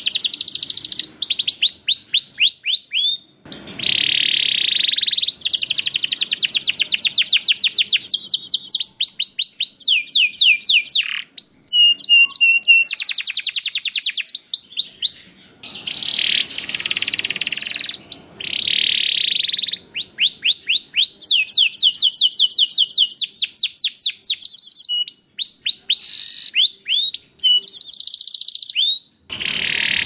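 Domestic canary singing a long, loud song of fast rolling trills and rapidly repeated sweeping notes, with a few clearer whistled notes. The song breaks off briefly every few seconds and starts again.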